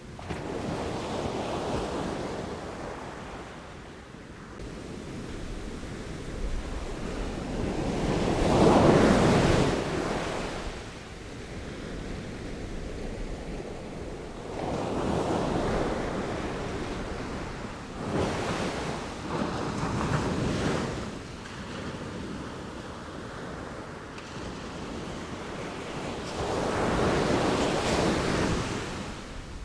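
Sea waves breaking and washing ashore in slow surges, about five in all, the loudest about nine seconds in.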